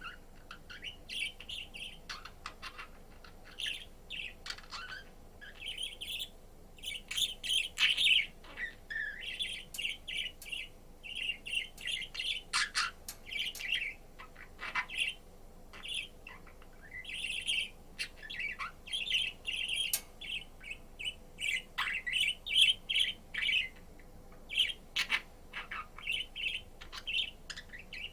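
Budgerigar chattering: a continuous, rapid run of short chirps, squeaks and clicks.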